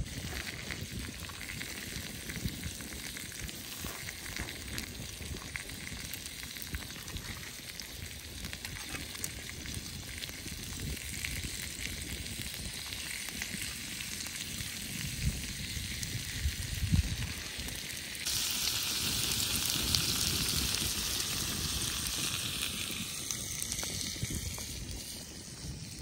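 Food frying, a steady sizzle that turns suddenly louder and brighter about two-thirds of the way through, then eases off near the end.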